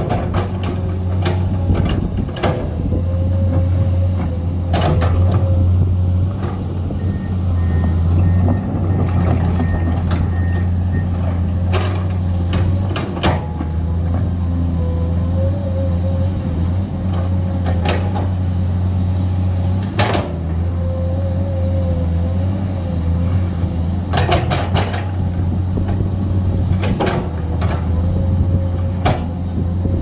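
Komatsu PC210 hydraulic excavator's diesel engine running steadily under digging load, with a wavering hydraulic whine over it. Irregular sharp knocks and clanks from the bucket and its linkage working in the dirt come every few seconds, including a quick cluster about two-thirds of the way in.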